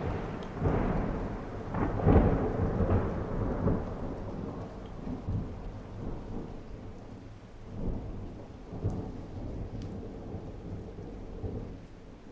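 A thunderclap breaking in suddenly and rumbling on, loudest about two seconds in, with further rolls and slowly dying away, over falling rain.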